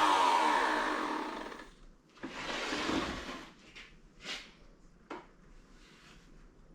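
Wood router motor spinning down after being switched off, its whine falling steadily in pitch and fading out about two seconds in. Then a short scraping rustle and a couple of light knocks from handling.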